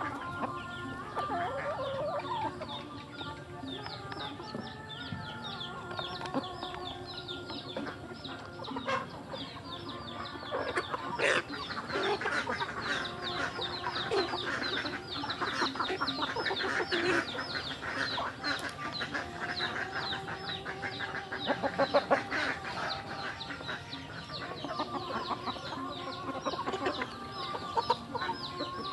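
A flock of young chickens clucking and peeping while they feed, with many short high peeps. Bursts of quick tapping come from beaks pecking feed from a plastic pipe trough.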